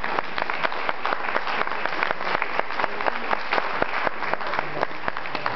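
Audience applauding: a dense, steady patter of many hands clapping, easing off near the end.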